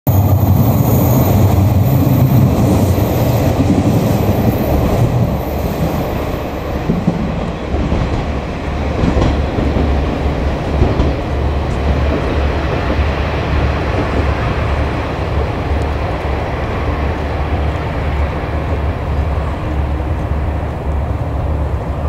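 KiHa 47/KiHa 140 diesel railcars approaching slowly: a steady low rumble of the diesel engines and wheels on the rails.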